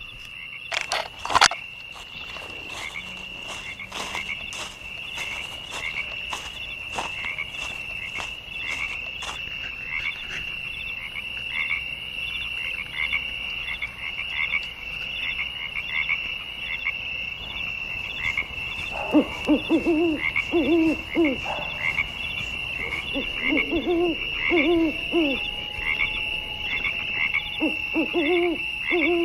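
Frogs calling in a swamp: a steady, high, pulsing trill runs throughout. From about two-thirds in, lower croaking calls come in short repeated bouts. A couple of sharp clicks sound about a second in.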